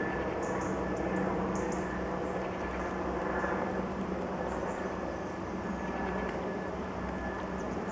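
Helicopter flying overhead: a steady rotor hum with a low throb and a thin high whine, fading slightly.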